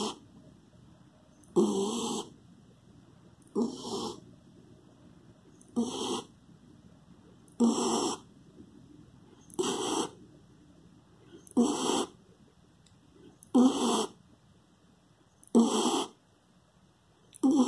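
A sleeping black-and-tan dog snoring steadily, about one snore every two seconds.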